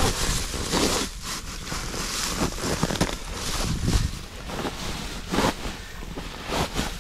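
Dry grass and reeds rustling and crackling in irregular bursts as they are grabbed and stuffed by hand into a duck blind's grass cover, with wind rumbling on the microphone.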